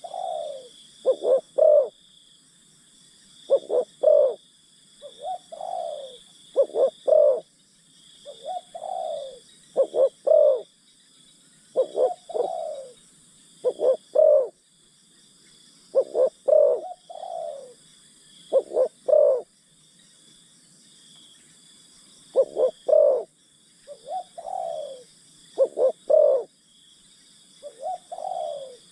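Spotted dove cooing: repeated phrases of a few short notes ending in a longer falling coo, one phrase every two to three seconds, the call used to lure wild doves to a decoy. A steady high-pitched insect buzz runs underneath.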